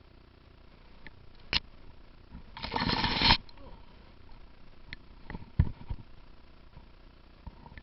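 Airsoft gun firing: a single sharp shot, a rattling full-auto burst about a second long, then a few more single shots.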